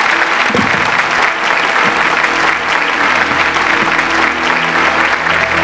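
Audience applauding, with music starting up underneath and coming through more clearly near the end.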